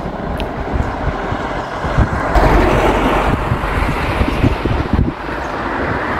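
Wind buffeting the microphone with a low rumble, and a road vehicle passing by, its tyre noise swelling up a little after two seconds in and fading again near the end.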